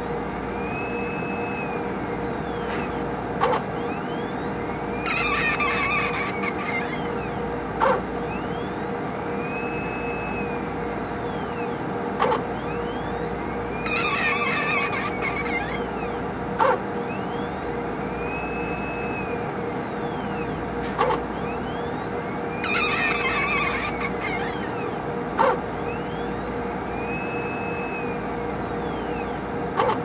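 Squeaky HPLC sample pump running through its repeating cycle: a steady hum, a sharp click about every four and a half seconds, and a squeak about every nine seconds (three in all), with a fainter whine rising and falling between the squeaks.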